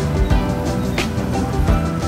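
Background music with sustained notes, a low beat and a sharp hit about a second in.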